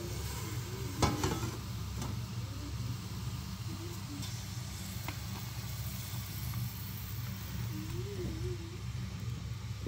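A steady low rumble, with a single sharp knock about a second in.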